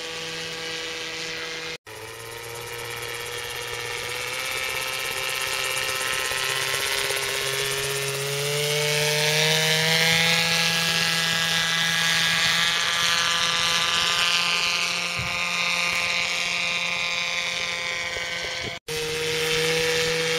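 Radio-controlled model autogyro's engine running in flight. Its pitch rises as it comes in for a low pass and it is loudest about halfway through. The sound cuts out abruptly for an instant about two seconds in and again near the end.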